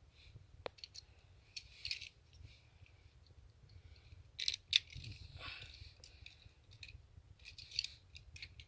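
Toy cars being handled: scattered light clicks and rattles in a few short clusters.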